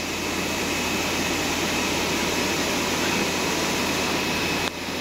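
A vacuum skin-packaging machine running: a steady mechanical hum and hiss with a thin steady whine. It dips briefly just before the end.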